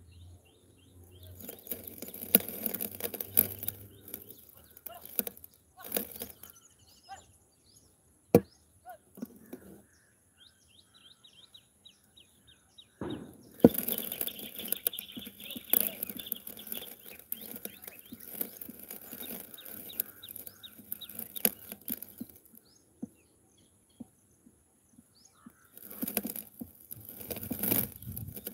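Small birds chirping over a steady high-pitched insect whine, broken three times by long stretches of crackling noise and a few sharp clicks.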